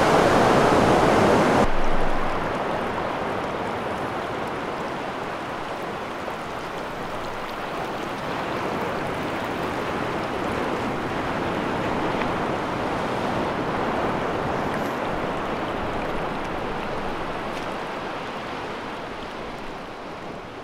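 Ocean surf washing onto a sandy beach, a steady rush of water noise. About two seconds in, a louder, brighter rush cuts off abruptly and a softer one carries on, fading out near the end.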